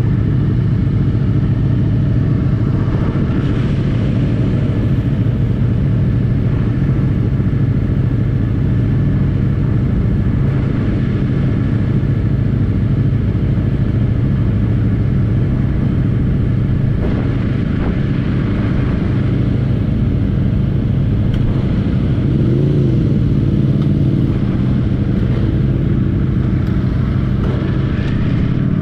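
Motorcycle engine running steadily under way: a low, even drone with no breaks.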